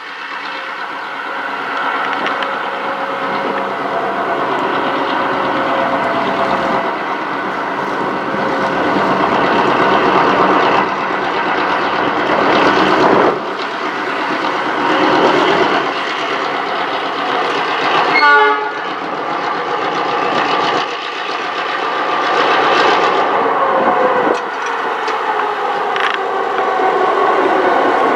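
A lash-up of four Clyde EMD 49 class diesel-electric locomotives hauling a grain train at low speed, engines running with wheel and rail noise, growing louder as they approach. A brief high chattering squeal comes about two-thirds of the way through, and the engine tones drop in pitch near the end as the lead locomotive passes close by.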